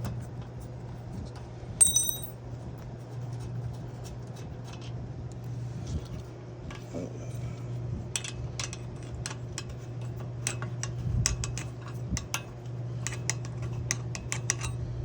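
Metal hand tools and bolts clinking and clicking as bolts are undone on a folding electric bike's rear wheel: one ringing metal clink about two seconds in, then a run of quick, irregular clicks from about halfway to near the end, over a steady low hum.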